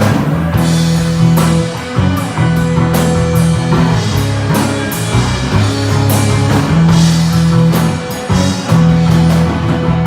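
Instrumental rock played live by a bass guitar, electric guitar and drum kit, with sustained low bass notes under steady drum hits and cymbals.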